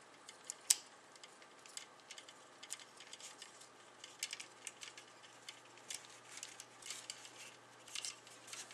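Plastic parts of a Bandai 1/100 Duel Gundam Assault Shroud model kit clicking and tapping faintly as shoulder armor pieces are fitted on by hand, with one sharper click near the start. A faint low hum runs underneath.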